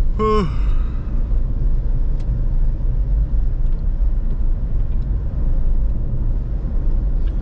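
Steady low rumble of engine and tyre noise inside the cabin of a Škoda Octavia driving on a wet road. A short falling vocal sound comes right at the start.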